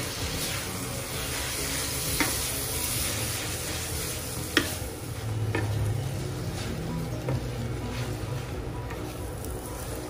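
Rice vermicelli being stir-fried in a non-stick wok: a steady sizzle with a wooden spatula stirring and tossing the noodles. A few sharp knocks come from the spatula striking the pan.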